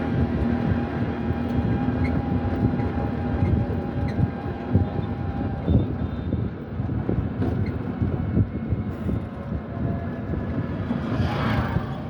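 Steady low rumble of a running vehicle, with many small knocks throughout.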